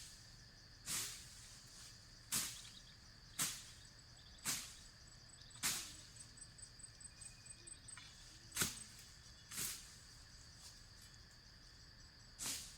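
Repeated swishing strokes, roughly one a second with a short pause midway, over a steady high insect drone.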